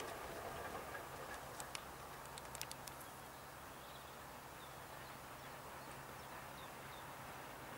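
Faint open-country ambience: the last of a passing train fades out at the start, then a few sharp clicks between about one and a half and three seconds in, and faint bird chirps midway, over a low steady hum.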